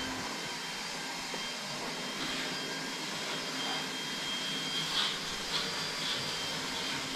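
A small motor running steadily, giving an even whirring hiss with a faint high tone in it, plus a few faint brief sounds about five and six seconds in.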